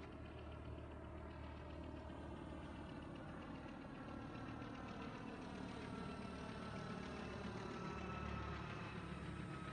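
Distant road traffic: a low steady rumble with a faint engine whine that slowly rises in pitch.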